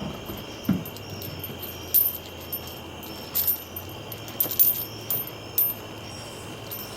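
Steel chain and shackle being handled: a scattering of light metallic clinks and jingles, several close together around the middle, over a faint steady hum.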